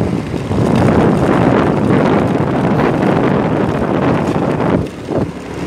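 Wind buffeting the phone's microphone while it is carried along the road on a moving vehicle: a loud, rough rumble that eases briefly near the end.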